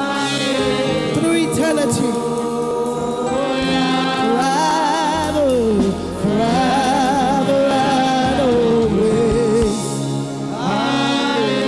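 Gospel worship music: a solo singer holding and sliding long notes with vibrato over sustained keyboard chords and a bass line.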